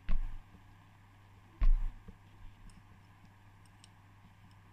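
Handling noise from a speedometer held in the hand: two dull knocks about a second and a half apart, then a few faint small clicks.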